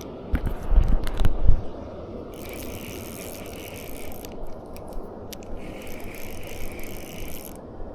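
A few handling thumps, then a fishing reel ratcheting in two runs of about two seconds each, with a fish on the line.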